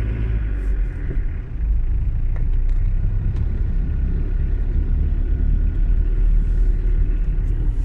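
JCB 3CX backhoe loader's diesel engine running cold as the machine moves off slowly, with valve clatter that the operator puts down to the engine not yet being warmed up. The engine sound dips briefly about a second and a half in, then runs louder and steady.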